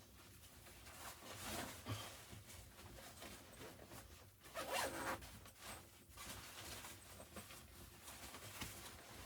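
A zipper being pulled in several faint rasping strokes, the longest and loudest about five seconds in.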